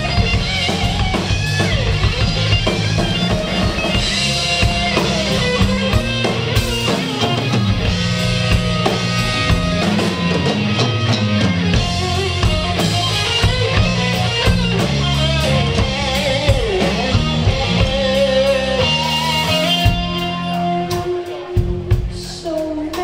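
Live rock band: electric guitar playing a lead line with bending notes over drum kit and bass guitar. The band drops quieter about twenty seconds in.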